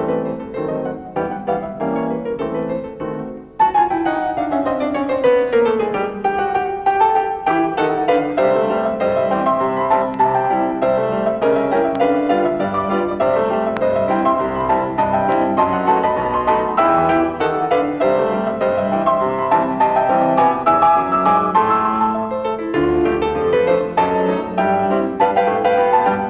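Solo piano music playing a lively accompaniment; about three and a half seconds in a new passage begins with a falling run of notes.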